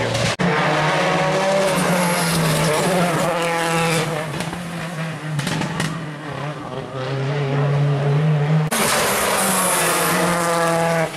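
Rally car engines revving hard, the pitch climbing and dropping as they go through the gears, with tyre squeal. The sound changes abruptly about half a second in and again about three-quarters through, as one car gives way to another.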